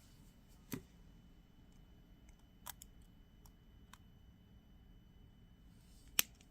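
A few small, sharp clicks of jewelry pliers and fine wire being worked by hand, spread out over a quiet stretch, with the loudest click near the end.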